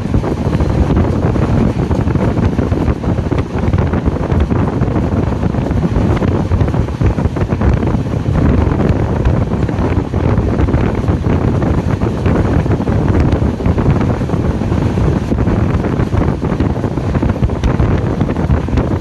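Heavy wind buffeting the microphone from a moving Indian Railways express train, over the steady running rumble of the coaches on the track.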